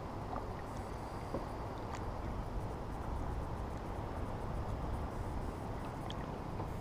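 Steady low rushing noise of open water around a kayak, with a few faint small clicks.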